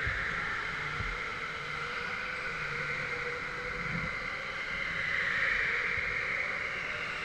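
Steady background noise of a large indoor karting hall, with a few faint knocks.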